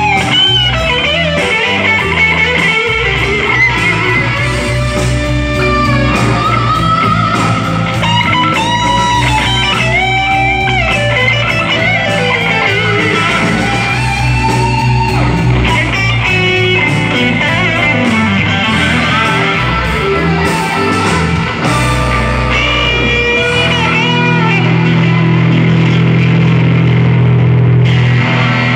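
Two electric guitars jamming: a lead guitar plays melodic phrases with bent, gliding notes over a low bass line. Near the end the low part swells into held, sustained notes.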